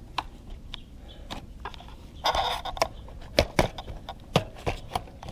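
Hard plastic clicks and knocks as a plastic air dam is worked onto a transmission cooler by gloved hands, with a short scraping rustle a little over two seconds in.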